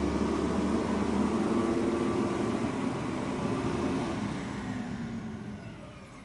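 Heavy vehicle engine running with a steady drone, fading out over the last two seconds.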